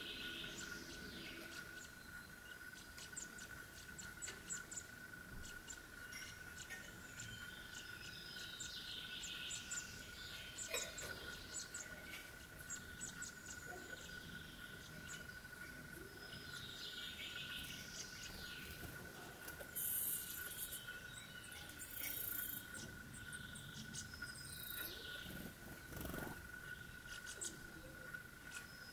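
Faint outdoor ambience with a steady thin high tone throughout. Scattered bird chirps come every few seconds, along with a few soft clicks and rustles.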